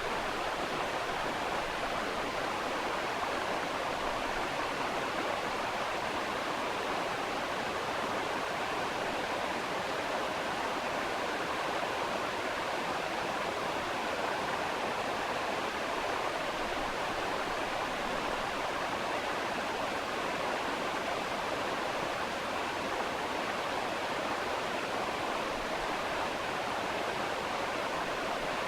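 A steady, even rushing noise like running water, with no clicks or tones: a background noise track laid in place of the dental scaler's sound.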